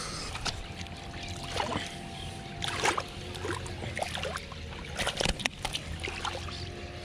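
Irregular splashing of water with scattered clicks and knocks as a hooked carp is brought in to the riverbank, over a faint steady hum.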